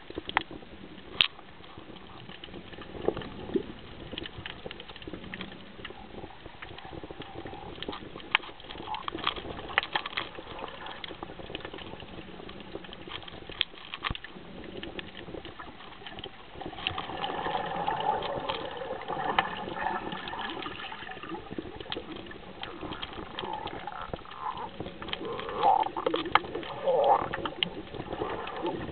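Underwater sound from a snorkel dive: steady crackling and clicking with water noise. Muffled, wavering calls come in about halfway through, with two louder ones near the end.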